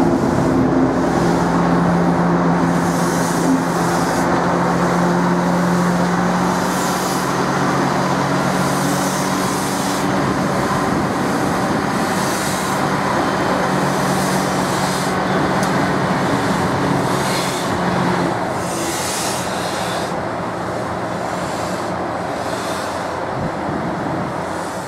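Diesel shunting locomotive's engine running steadily under load as it moves coupled steam locomotives through the yard. The engine's steady drone eases off about eighteen seconds in, leaving a lower rumble.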